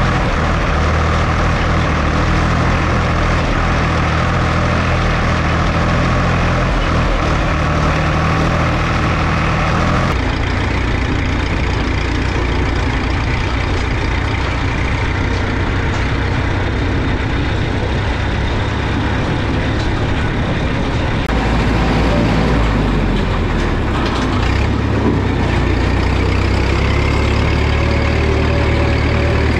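Diesel tractor engines running: first a Valmet tractor heard close up as it pulls a fertiliser spreader, then about ten seconds in the sound cuts to a different, more distant engine sound, and near the end a CBT tractor's engine running steadily as it is driven.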